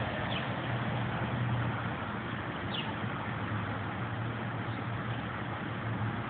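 Steady low hum under a constant outdoor noise haze, with a brief high chirp about three seconds in.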